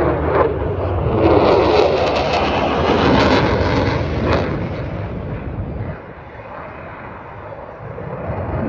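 Aircraft flying past at an air show: a loud roar with crackling through the first half, fading away from about five seconds in.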